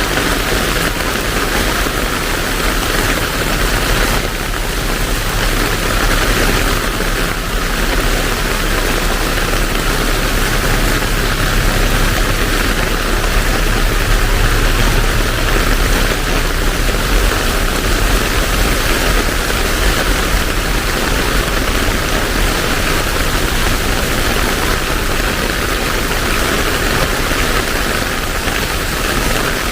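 Heavy rain falling steadily: a dense, even hiss with a constant low rumble underneath.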